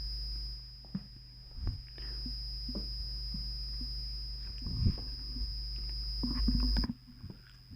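Close-miked eating sounds: irregular chewing and mouth clicks, with a few louder low smacks about five seconds in, over a steady high electrical whine and hum that cut off shortly before the end.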